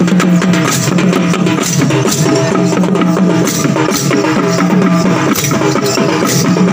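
Several mandar barrel drums beaten by hand together in a fast, dense rhythm, the drumming of a Gond mandri dance.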